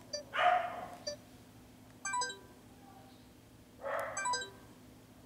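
A dog barking, once about half a second in and again near four seconds, with short electronic beeps around two seconds and just after four seconds as a camcorder's touchscreen menu is tapped.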